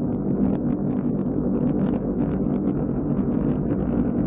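Rocket engines of a Proton rocket at liftoff: a steady, heavy rumble shot through with rapid crackling.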